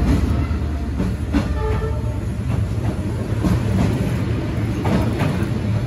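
Passenger train coaches rolling past at close range: a steady low rumble with irregular clacks of the wheels on the rails.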